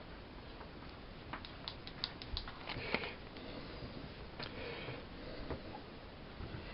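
Miele Softtronic W 204 front-loading washing machine running its Mini wash program: a low steady hiss with scattered light clicks and soft swishes, like the drum turning wet laundry.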